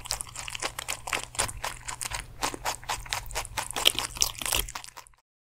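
A pet rabbit chewing crunchy food close to the microphone: a fast run of crisp crunches, several a second. The sound cuts off suddenly near the end.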